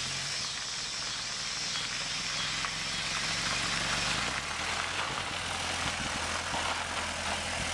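1923 Ford Model T truck's four-cylinder engine running as the truck drives past on a gravel driveway, its note growing stronger about halfway through as the truck comes near.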